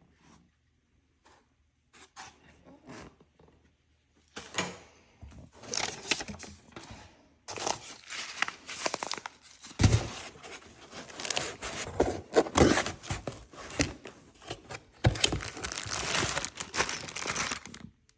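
Packaging being torn open and crumpled by hand: a few faint ticks at first, then from about four seconds on continuous tearing and crinkling with sharp knocks and one heavy thump.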